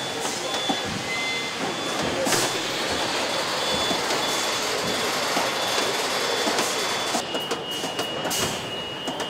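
Assembly-plant floor noise: a steady wash of machinery with a high beeping tone that comes and goes. About seven seconds in, a continuous high tone starts, with scattered clicks.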